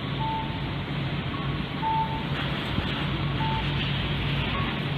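Steady engine noise of a Boeing 787-8 airliner passing overhead, with short electronic beeps repeating about every one and a half seconds.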